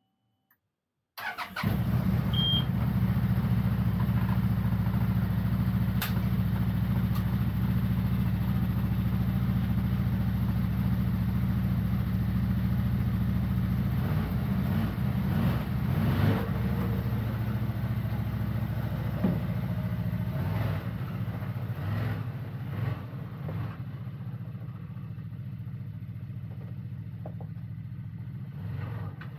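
CFmoto CForce 1000 ATV's V-twin engine starting about a second in, then running steadily, a little quieter over the last few seconds.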